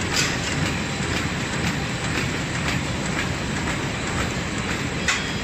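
Automatic two-tier, four-lane, eight-roll plastic bag cutting machine running, with a steady mechanical clatter and a sharp click repeating about twice a second.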